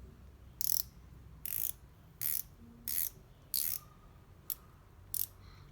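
Würth Zebra 13 mm flex-head ratcheting wrench being worked back and forth, its ratchet clicking in about seven short bursts, roughly one a second.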